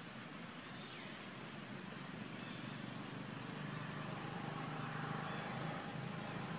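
Steady outdoor background hiss with a vehicle engine running nearby, growing louder in the second half.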